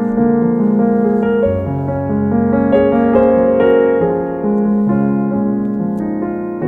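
Background music played on piano, slow sustained chords.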